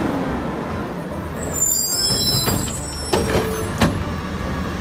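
Front-loader garbage truck's diesel engine running steadily as it pulls up, with a high squeal of its brakes about one and a half seconds in. A couple of sharp knocks follow later.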